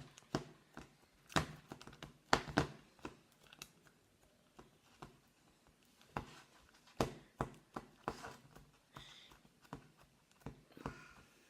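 Fluffy slime being squished and pressed by hand into a plastic tub: irregular sharp wet clicks and pops, quieter for a couple of seconds in the middle.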